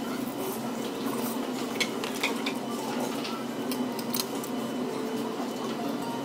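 Metal spoon clinking against a bowl while eating, a few light, separate clinks during the first four seconds over a steady background murmur.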